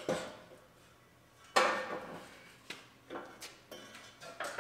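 Exhaust pipe clanking against the truck's underside as it is worked out from beneath a GMC Yukon: one sharp ringing clank about a second and a half in, then several lighter knocks.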